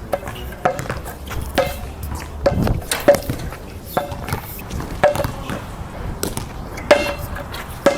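Basketball bouncing on a hard court, about once a second at an uneven pace, each bounce a sharp slap with a short ringing ping.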